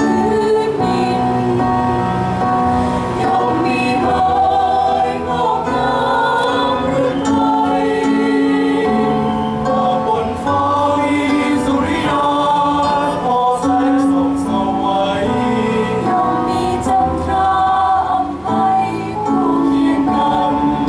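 A mixed choir of men and women singing in harmony, holding long notes that change every second or so, with short breaths between phrases.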